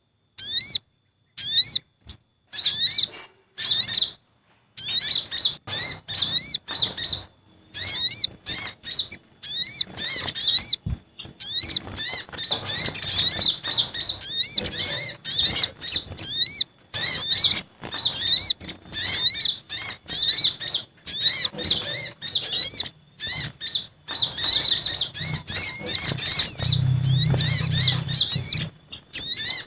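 Recorded sunbird calls played as a bird lure, agitated sogon and kolibri ninja calls mixed together: rapid strings of short, high, upward-sweeping chirps in bursts with brief gaps, growing busier after the first few seconds.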